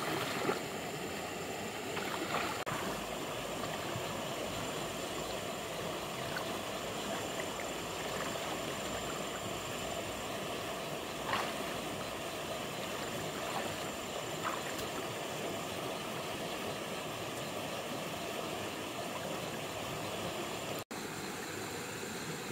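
Shallow stream water running steadily, with splashing in the muddy water near the start.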